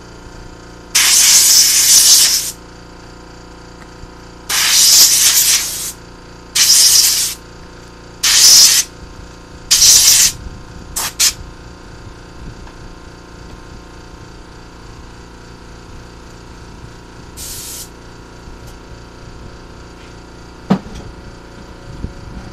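Spray nozzle hissing in short bursts at spark plugs being cleaned: five bursts of half a second to a second and a half in the first ten seconds, two quick puffs right after, and one more short burst later. A single sharp click near the end.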